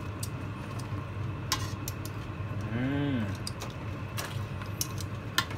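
Metal tongs clicking against the side of a metal pot as chunks of pork belly are turned in braising sauce, a few sharp clicks with the loudest near the end, over a steady low hum. A short hummed voice sound comes about halfway.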